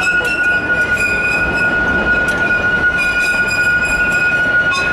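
Amusement-park scenic railroad train running, a steady rumble of the cars with a continuous high-pitched squeal from the wheels.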